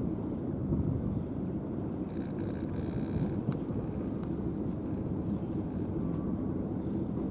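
Steady low rumble of wind buffeting the microphone outdoors, with a faint brief high tone about two seconds in.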